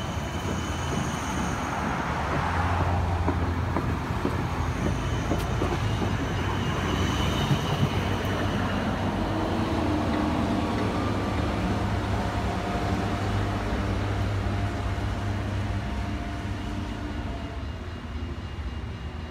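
Siemens Combino tram running along its track: a steady low hum and rumble of wheels on rail, with a faint motor whine in the second half, fading as it draws away near the end.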